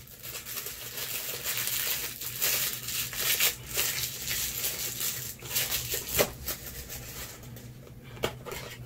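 Crinkly wrapping on a perfume box being torn and crumpled as it is pulled off by hand, an irregular crackling rustle with several sharper crackles.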